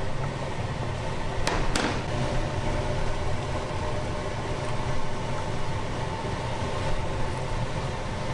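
Steady low mechanical hum, with two quick metallic clinks of a utensil against a stainless steel pot about a second and a half in.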